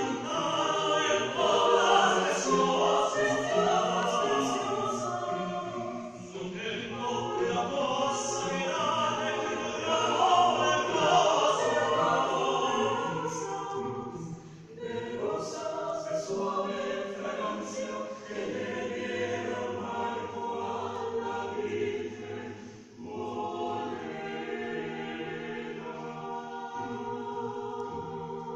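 Small mixed chamber choir of eight voices singing a cappella in several parts, with sustained chords and short breaks between phrases about six, fourteen and twenty-three seconds in. Louder in the first half, softer toward the end.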